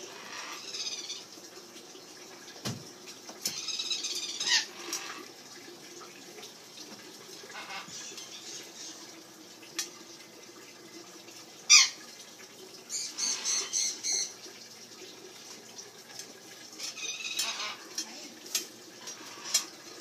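Parrots calling at intervals with short squawks. The loudest is a sharp squawk about twelve seconds in, followed by a run of about four quick notes.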